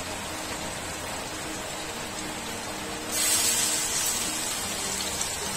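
Hot oil sizzling on a flat iron tava. About three seconds in, the sizzle turns suddenly louder and more hissing as rice-flour-coated fish go into the oil.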